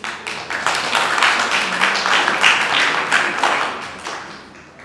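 A group of people clapping: the applause starts suddenly, holds dense and loud, then fades out near the end.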